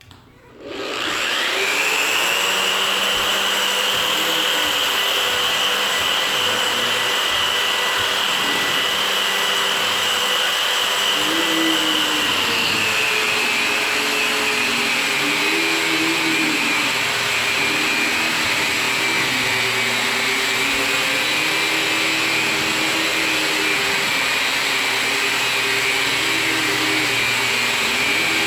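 Electric drywall sander with 240-grit paper starting up about a second in, its motor whine rising, then running steadily as it sands a drywall ceiling. The whine drops slightly in pitch about halfway through.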